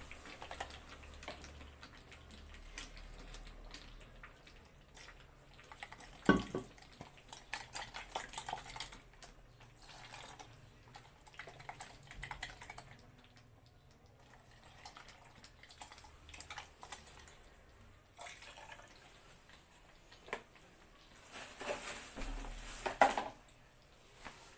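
Cream sauce simmering in a steel wok on low heat, with faint irregular popping and crackling. A sharp knock about six seconds in and a few more near the end.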